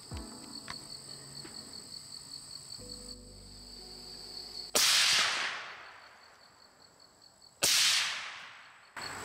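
Two rifle shots about three seconds apart, each a sudden loud crack with a tail fading over about a second. The shots are fired at a wild hog. Insects trill steadily and high before the first shot.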